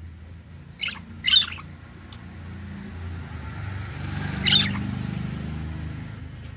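Caged budgerigars giving three short, sharp chirping calls, two close together about a second in and one more about four and a half seconds in, over a steady low rumble.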